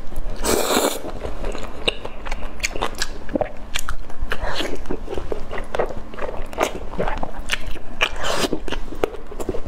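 Close-miked eating sounds: biting into and chewing a sticky, sauce-glazed grilled fish fillet, with many short wet clicks of lips and mouth throughout.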